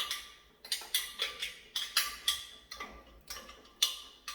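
A spoon knocking and scraping against a cooking pot while stirring thick plantain porridge: about a dozen sharp, irregular clacks, two to three a second, each with a short metallic ring.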